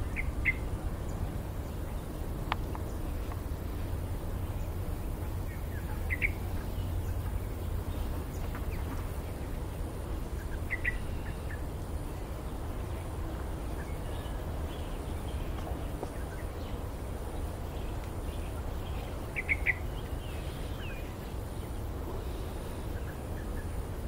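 Parrots giving short, sharp calls of two or three quick notes every few seconds, four times clearly and a few more faintly, over a steady low background rumble.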